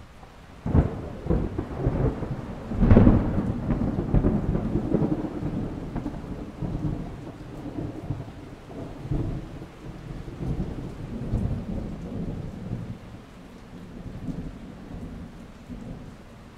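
A thunderclap: a sharp crack less than a second in, a louder crash about three seconds in, then a long low rumble that slowly fades, over a steady hiss.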